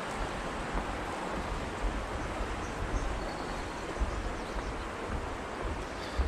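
Steady rush of a mountain river flowing, with wind buffeting the microphone in irregular low gusts.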